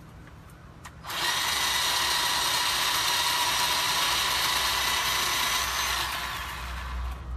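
Bauer 20V cordless electric chainsaw starting up about a second in and running at a steady high speed with a whine, then winding down near the end.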